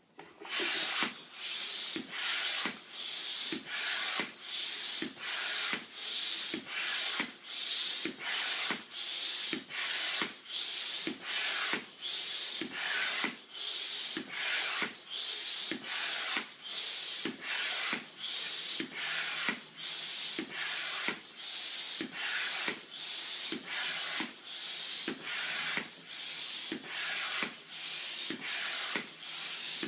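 Hand-operated floor air pump inflating a large latex balloon, pumped in a steady rhythm of about three strokes every two seconds. Each stroke is a rush of air with a small knock at its start.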